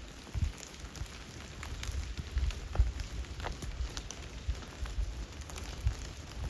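Rain falling on a tent, heard from inside: irregular taps of drops on the fabric, some dripping through the leaking tent, over a low rumble.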